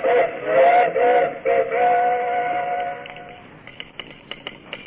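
Steam locomotive whistle blowing in blasts that scoop up in pitch: a short one, then a long one of about two seconds. Near the end, rapid irregular clicking starts.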